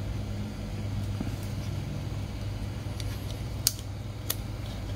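Sharp plastic clicks from the latch of an SJCAM SJ4000's clear waterproof housing as it is worked open: four clicks in the second half, the third the loudest. Under them runs a steady low hum.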